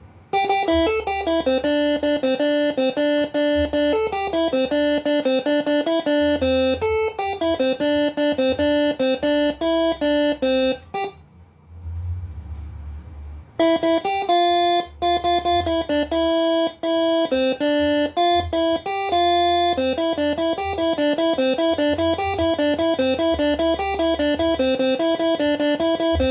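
Moreno MS5 six-trumpet telolet basuri air horn playing a quick melody of held notes. It pauses for about two seconds near the middle, then starts again.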